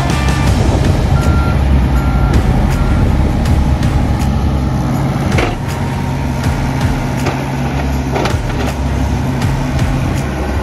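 John Deere 60G mini excavator's diesel engine running steadily while the machine travels, its travel alarm giving a few short beeps in the first three seconds. Scattered clanks come from the machine as it moves.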